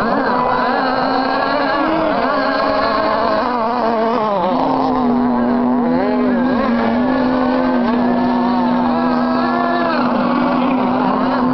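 Several 7.5cc two-stroke glow engines of racing tunnel-hull model powerboats running at high revs, their pitches rising and falling as the boats race and corner. From about four and a half seconds in, one engine holds a steady high note.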